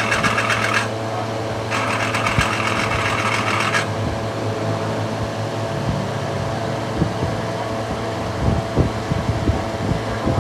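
Steady mechanical hum from running machinery. Two bursts of a rapid, rattling hiss come in the first four seconds, the second about two seconds long, and scattered light clicks follow in the second half.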